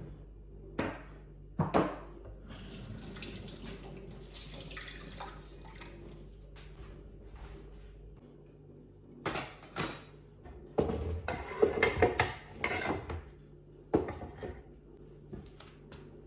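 Water running from a tap into a sink for several seconds, then dishes and cutlery clattering and knocking together during washing up.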